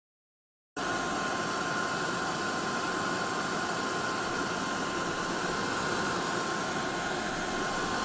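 Hair dryer sound effect: a steady blowing hiss with a faint whine, starting suddenly about a second in and running evenly.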